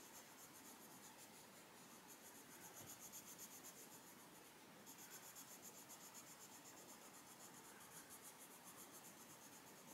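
Faint scratching of an Arteza Expert coloured pencil shading on a colouring-book page, in quick, even back-and-forth strokes, with a brief pause a little before the middle.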